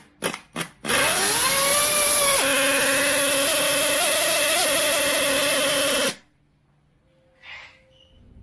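Miniature nitro-fuelled two-stroke model engine pull-started: three quick cord pulls, then it fires, its pitch climbs into a steady high-pitched buzz, and about six seconds in it cuts out suddenly. The small engine stalls when it has to drive the water pump, though the owner finds it can run with no load.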